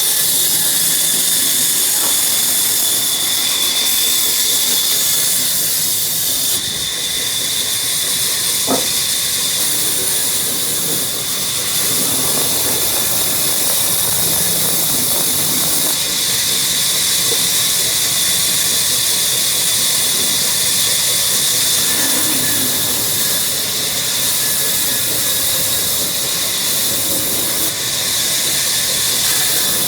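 Power woodworking machinery cutting wood: a steady, high-pitched hiss with a thin constant whine, continuous with only slight dips in level.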